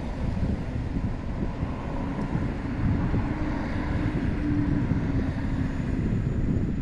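Wind buffeting the microphone, a steady low rumbling noise, with a faint steady hum rising out of it for a few seconds in the middle.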